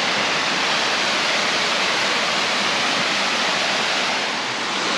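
Steady rush of water from the cascades of Crabtree Falls, an even, unbroken noise of falling water.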